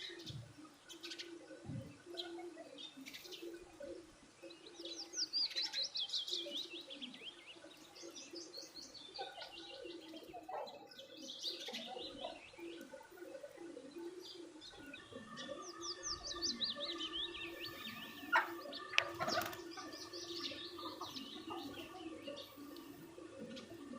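Small birds chirping, with quick runs of high, falling chirps coming in bursts. Two sharp clicks stand out about three-quarters of the way through.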